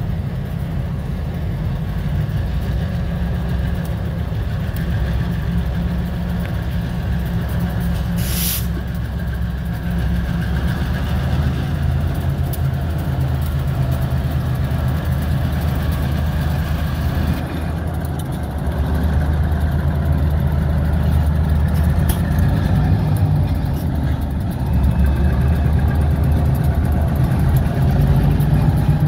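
Two EMD SW1200 switcher locomotives' 12-cylinder 567 two-stroke diesels running steadily while pulling a long cut of freight cars, growing louder as the units pass close by, with the engine note shifting a few times. A short hiss of air about eight seconds in.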